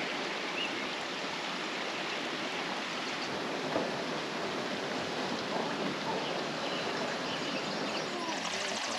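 Steady rush of flowing water in a natural hot spring pool, with faint voices in the background.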